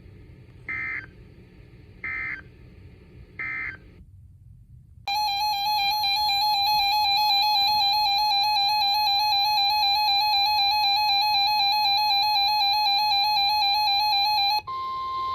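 Emergency Alert System tones: three short bursts of warbling data tones close out the previous warning (the end-of-message code). After a second of silence comes the loud, steady two-tone EAS attention signal for about nine seconds. Near the end it switches to the single steady NOAA Weather Radio alert tone.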